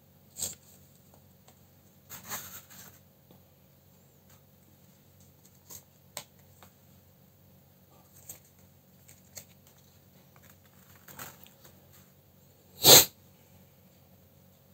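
Small paper cutouts being handled and slid across a table: scattered short paper rustles and light taps, with one louder sharp sound near the end.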